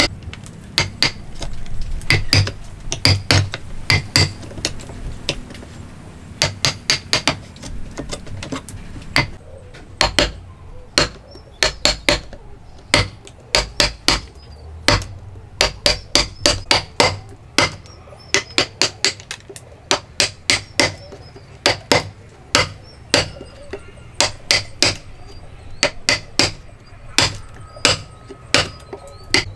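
Wooden mallet striking the handle of a steel chisel: sharp taps, often in quick pairs and short runs, as the chisel is driven into the timber to cut a joint.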